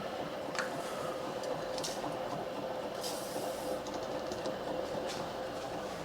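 Milling machine spindle running a reamer down through a steel wheel-spacer hole under power down feed: a steady, quiet machine hum with a thin, even tone.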